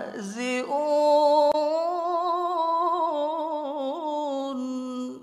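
A man reciting the Quran in the melodic tilawah style. He draws out the verse's last word, "yastahzi'un", starting with a quick downward swoop and rising into one long, wavering, ornamented held note that stops abruptly at the end.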